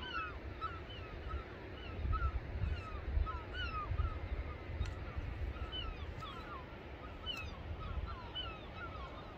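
Birds calling over and over: short, sharp notes, two or three a second, several birds overlapping. Wind rumbles unevenly on the microphone underneath.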